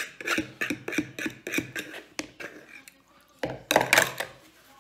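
A fork scraping the last of the pasta out of a bowl in quick repeated strokes for about two seconds. Then a paper napkin rustles loudly, briefly, about three and a half seconds in.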